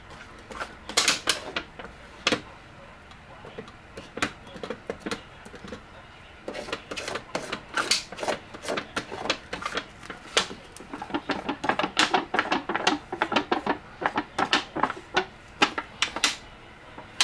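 A mixing stick clicking and scraping against a thin aluminium pie tin as epoxy bedding compound is stirred in it. The clicks are quick and irregular, a few scattered ones at first, then almost continuous from about six seconds in.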